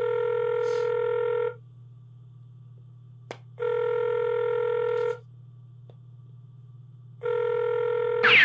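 Telephone ringback tone on a call waiting to be answered: three steady beeps about a second and a half long, a couple of seconds apart, over a low steady hum.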